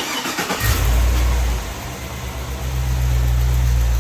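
Chevrolet Trailblazer SS's 6.0-litre V8 starting after a fresh oil change: a brief crank, the engine catches within about half a second and flares, then settles to a steady idle.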